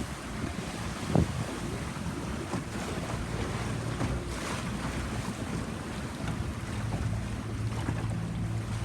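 A boat's engine droning low and steady under wind buffeting the microphone, with water splashing along the hull. There is one sharp knock about a second in.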